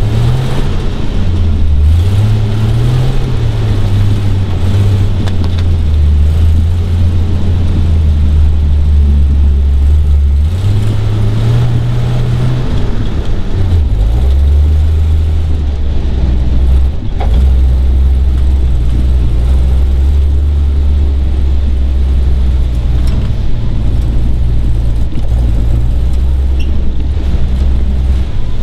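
Kaiser Jeep M715's original Tornado 230 overhead-cam straight-six running as the truck drives a tight wooded trail, heard from the cab. The engine note climbs about ten seconds in, falls back a few seconds later, then holds steady.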